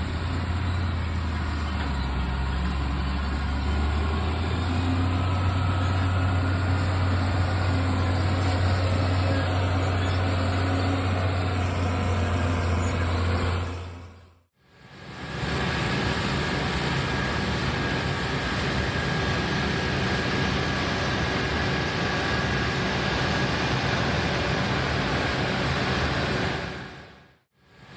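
Large diesel farm machinery running steadily at work in a wheat field, in two shots. The first has a strong, steady low engine drone. After a brief fade about halfway through, the second has a noisier running sound with a faint steady whine.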